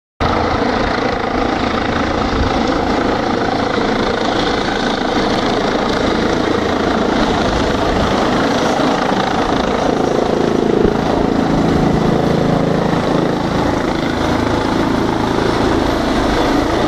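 Helicopter running steadily, with a loud continuous engine and rotor noise.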